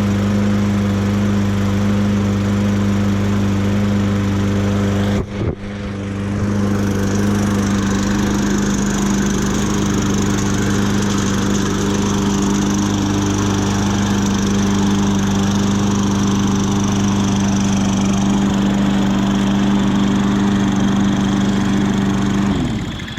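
Toro push mower's small engine running steadily at full speed just after its first start, with a brief dip about five seconds in; it sounds healthy for a freshly repaired mower. Near the end the engine slows and stops.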